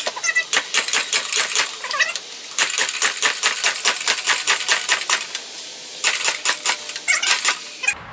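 Harbor Freight manual tire changer in use as the tire is worked over an aluminium rim: a rapid run of clicks and clatters, several a second, with a few short squeaks and two brief pauses.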